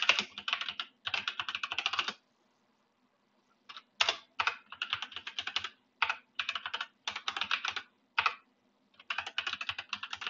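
Computer keyboard typing in quick bursts of keystrokes, with a pause of about a second and a half roughly two seconds in.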